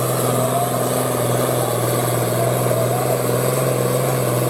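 A steady, fairly loud engine-like drone with a low hum, and a thin tone above it that slowly wavers in pitch.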